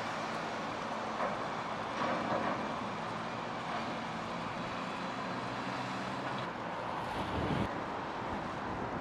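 Diesel engine of a Terberg terminal tractor running steadily at low speed while towing, over steady harbour vehicle noise. A short low rumble comes near the end.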